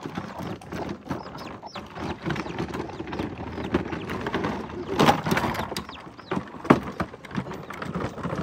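Child's plastic ride-on toy loader rolling over dirt and gravel, its hard plastic wheels and body clattering and knocking, with sharper knocks about five seconds in and near seven seconds.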